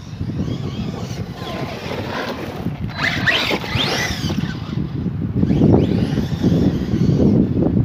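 Electric RC monster truck driving over grass, its motor whine rising and falling as it speeds up and slows, loudest about three seconds in. Wind rumbles on the microphone.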